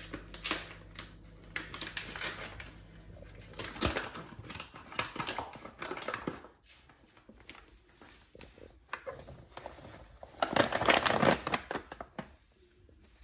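Flour being poured from its bag into a stainless steel bowl, a dense rustling rush a little over ten seconds in that is the loudest part. Before it, scattered short rustles and knocks of handling.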